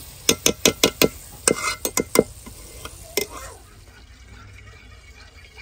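A metal slotted spoon knocking sharply against the aluminium karahi, about nine quick knocks in two seconds and one more about a second later, as solid ghee is knocked off the spoon into the pan.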